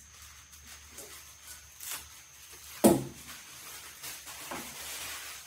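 Handling noises: a few light clicks, a single solid knock about three seconds in, and a soft rustle near the end.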